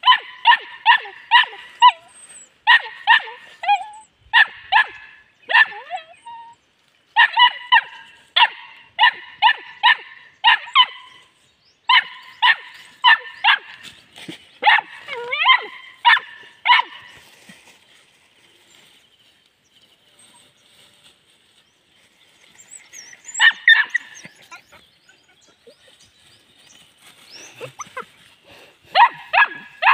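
Puppy yapping in play: quick high-pitched yips, two or three a second, in long runs. It falls mostly quiet past the middle, gives one short burst, and starts yapping again near the end.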